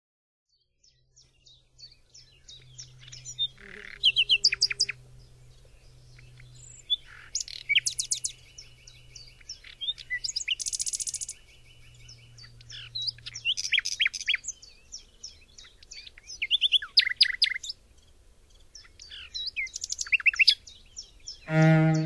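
Common nightingale singing: varied phrases of rapid repeated notes, fast trills and clear whistles, broken by short pauses. Just before the end a cello begins to play.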